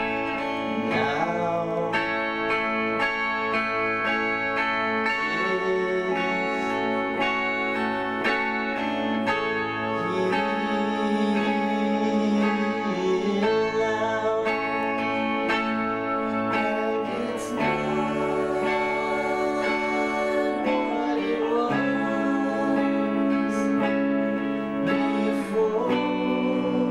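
A live band playing guitar-based rock: steadily strummed guitars, with the chords changing a few times in the second half.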